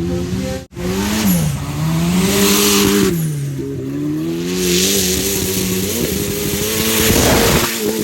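Off-road race vehicle's engine revving hard, its pitch climbing and dropping again several times as the driver works the throttle, with a loud rushing hiss rising over it twice. The sound cuts out for an instant shortly after the start.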